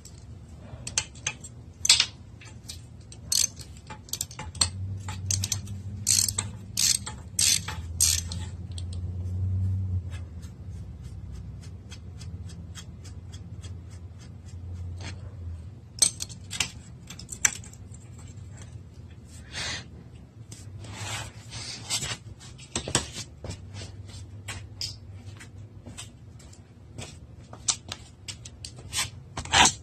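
Socket ratchet clicking in quick runs, with pauses between, as the pit bike's exhaust bolts are worked loose.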